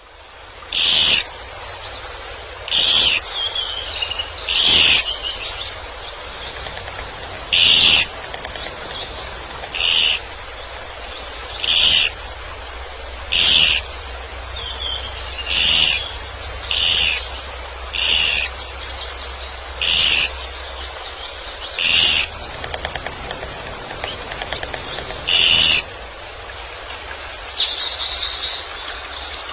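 A woodpecker calling: a loud, short, high call repeated about a dozen times at uneven gaps of one to three seconds, with a fainter, different chirping near the end.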